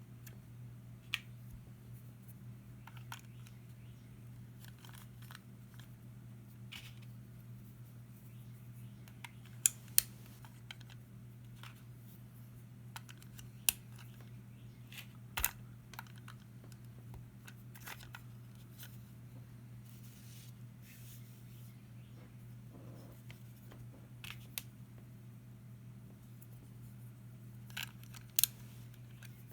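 Lego pieces clicking and snapping together as they are handled and pressed on during a build: scattered short, sharp clicks, the loudest a close pair about ten seconds in and another near the end, over a steady low hum.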